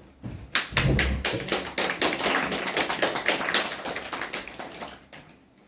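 Applause from a small audience: many quick, uneven hand claps starting about half a second in and dying away near the end, with a dull low thump about a second in.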